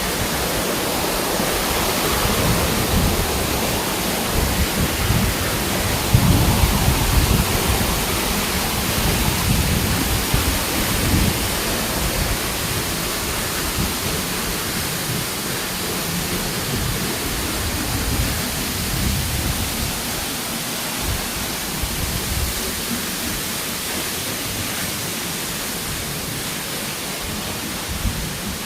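A tall waterfall's water falling and rushing, a steady, loud, even hiss, with gusty low rumbling that dies down about two-thirds of the way through.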